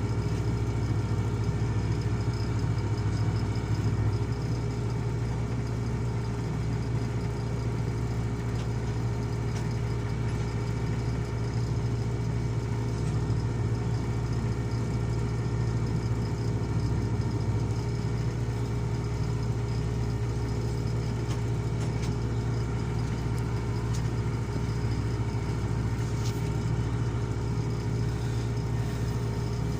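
Heavy diesel engine running steadily at an even speed, a constant low drone with a steady hum.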